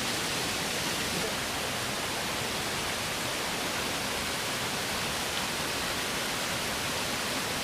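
Steady rush of the Big Bradley Falls waterfall: an even, unbroken wash of falling water.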